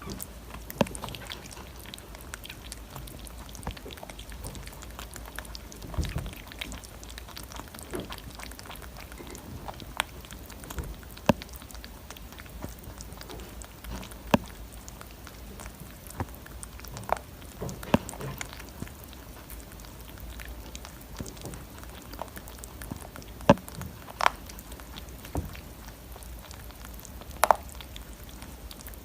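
Irregular light clicks and taps, a dozen or so standing out, over a steady low hum.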